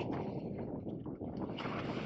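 Strong wind buffeting the microphone, a steady rumbling rush that swells and eases in gusts.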